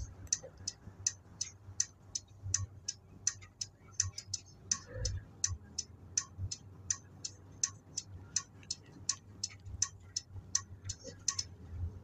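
Turn-signal flasher relay ticking about three times a second inside a Nissan Diesel city bus with a Fuji Heavy Industries 7E body. The ticking runs over the low rumble of the bus's diesel engine and stops near the end.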